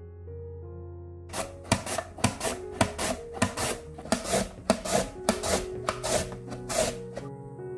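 A carrot being julienned: quick, rhythmic rasping strokes, about three a second, as the strips fall into a bowl. Background music plays under it.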